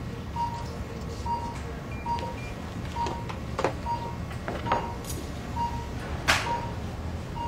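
Knocks, clicks and cloth rustling from handling a small submersible coolant pump and rags, the loudest knock about six seconds in, over a steady low hum. A short electronic beep repeats about once a second.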